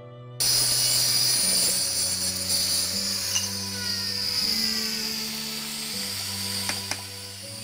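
A handheld electric power tool starts abruptly about half a second in and runs with a steady high whine, then slowly fades. A couple of sharp clicks come near the end. Slow sustained string music plays underneath.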